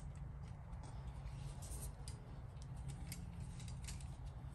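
Light, scattered clicks and rustles of a steel tape measure and a paper decal sheet being handled, over a steady low hum.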